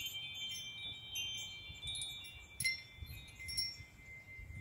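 Hand-held metal tube chime being jingled, its tubes struck about once a second and ringing together in several overlapping high tones that hang on; the strongest strike comes about two and a half seconds in. It is rung to open a relaxation session.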